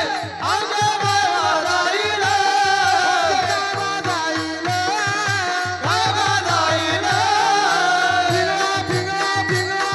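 Marathi devotional folk singing: a male voice holds long, wavering melismatic phrases without clear words over a steady hand-drum beat of several strokes a second.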